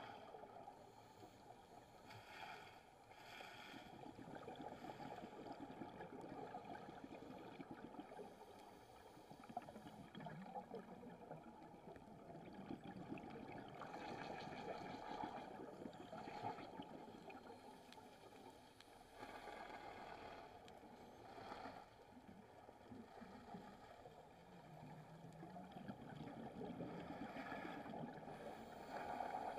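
Faint, muffled underwater sound through a camera housing: a steady low rumble, with a short burst of hiss about every six seconds.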